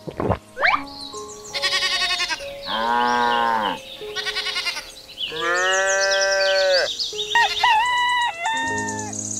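Sheep bleating four times in a row over background music, then a higher call that jumps in pitch near the end.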